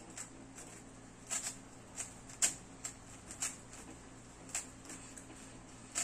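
Plastic 3x3 GAN speed cube turned by hand: irregular clicks and clacks as its layers are twisted, about a dozen, the loudest about two and a half seconds in.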